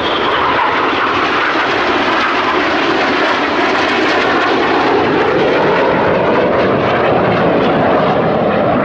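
Several BAE Hawk T1 jets flying past in formation, their Adour turbofan engines making a loud, steady jet noise whose pitch drifts slowly lower and back up.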